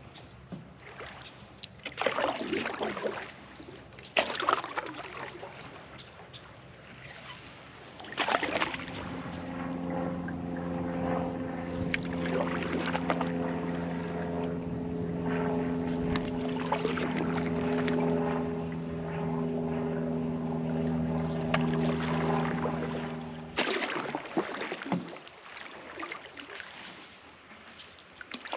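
Canoe paddle strokes in calm water, each a swish and drip about every two seconds. From about eight seconds in to about twenty-four, a steady hum with several held pitches is louder than the strokes.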